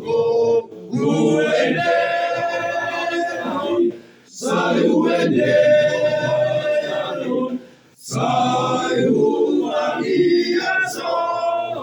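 Choir singing a Batak hymn in long held phrases, with short breaths between phrases about four and eight seconds in.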